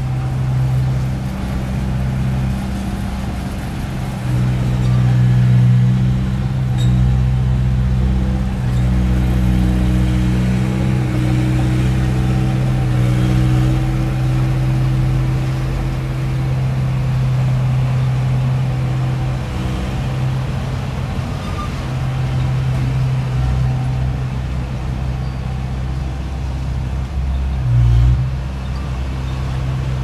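Diesel engine of a small crawler bulldozer running steadily under load as it pushes dirt. It grows louder about five seconds in and swells briefly near the end.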